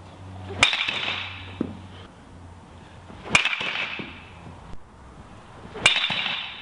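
Baseball bat hitting pitched balls: three sharp cracks about two and a half seconds apart, each ringing out for about a second in the indoor batting cage.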